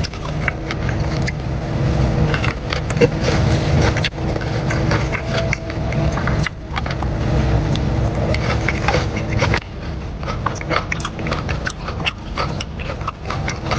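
Eating noises close to the microphone: chewing and mouth sounds, with many irregular small clicks and crackles over a low rumble.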